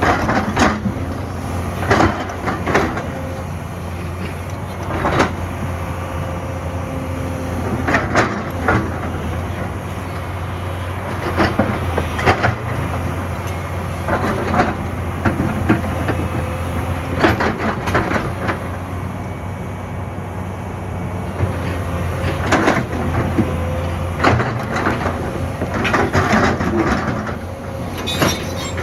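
Excavator's diesel engine running steadily, with repeated metallic clanks and knocks every second or two as the bucket works among stones.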